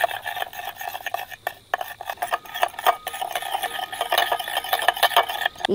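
Spoon stirring rock salt into a small dish of herbal juice, with irregular scraping and light clinking against the dish as the salt is worked round to dissolve.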